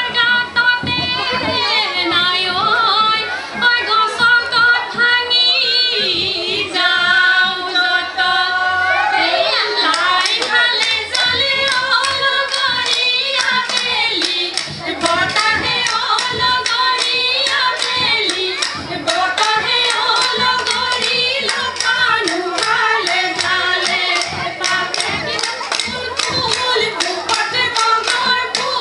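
Women singing a Bihu song in wavering, trilling voices; about ten seconds in, a fast, even clapping beat joins the singing.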